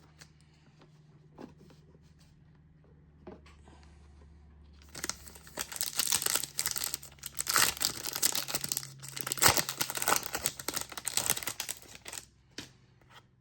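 Wrapper of a trading-card booster pack being torn open and crinkled. A dense crackling starts about five seconds in and lasts about seven seconds, after a few faint clicks.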